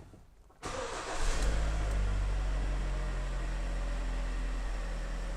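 Hyundai ix35's G4KD 2.0-litre four-cylinder petrol engine starting from cold after standing overnight: it catches about half a second in, flares up in revs, then settles into a steady idle.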